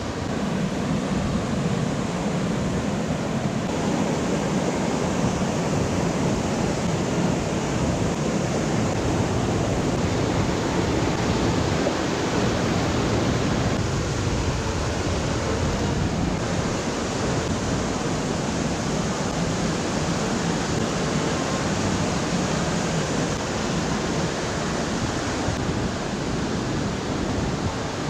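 Steady rush of a waterfall and white-water creek, a constant noise with no breaks.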